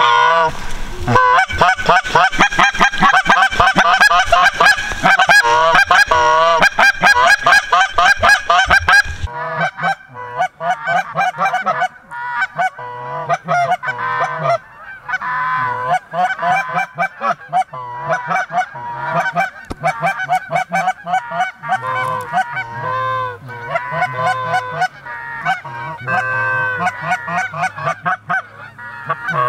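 A hand-blown goose call sounding rapid, close, loud honks and clucks for about the first nine seconds. Then a flock of geese honking overhead, many overlapping honks, more distant.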